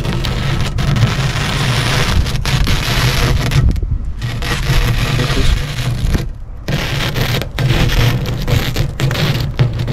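Razor blade scraping old silicone sealant off the edge of an aquarium's glass panel: a continuous gritty scraping that breaks off briefly about four seconds in and again about six and a half seconds in, over a low rumble.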